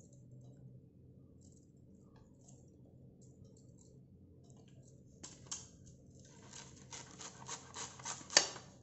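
Kitchen knife slicing a banana stem into thin rounds on a steel plate: faint handling at first, then from about five seconds in a quick run of crisp cuts, about three to four a second, growing louder, with the last one loudest.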